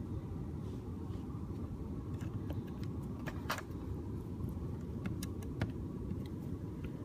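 Small sharp clicks and ticks of a metal gripping tool working against a tiny light bulb and its plastic socket in a car's headlight switch panel, scattered from about two seconds in, with the loudest click about three and a half seconds in. Under them runs a steady low rumble.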